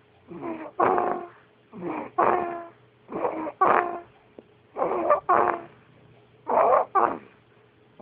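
A dog snoring in its sleep: five snores about every second and a half, each in two quick pitched parts.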